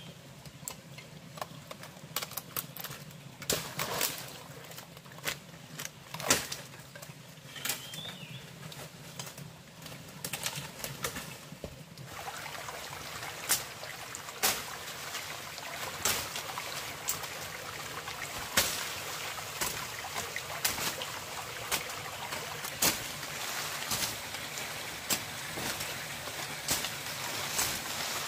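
Irregular sharp knocks and clicks over the steady rush of a small stream. The water grows louder and fuller about twelve seconds in.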